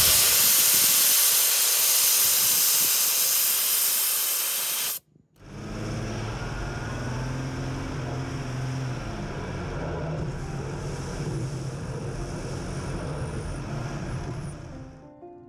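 Loud, steady hiss of air rushing out of a van tire through a rapid-deflate valve stem as it is aired down for off-roading. It cuts off suddenly after about five seconds. A quieter, steady low vehicle hum follows and fades near the end.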